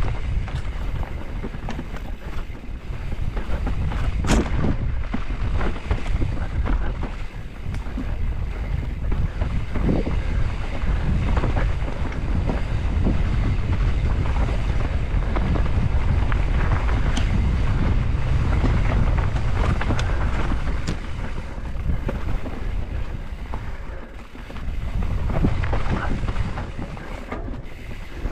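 Wind buffeting a helmet-mounted camera microphone during a fast descent on a mountain bike, with tyres rumbling over a dirt forest trail. Scattered clicks and rattles from the bike run through it. The loudness dips briefly about three-quarters of the way through.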